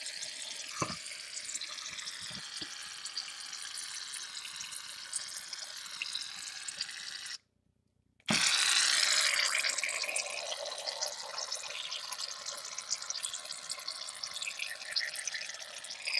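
Aerosol can of shaving cream spraying foam with a crackly hiss, the can nearly empty. The hiss cuts off suddenly about halfway through and starts again a second later, louder at first.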